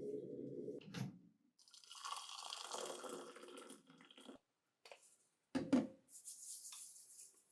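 Water running from a kitchen tap into a sink for about two seconds, then a sharp knock and a brief high hiss of water near the end. A click about a second in cuts off a low steady hum.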